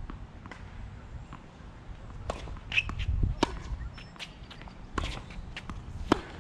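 Tennis balls struck by rackets and bouncing on a hard court: a series of sharp pops and knocks at uneven intervals, the loudest about six seconds in, over a low rumble.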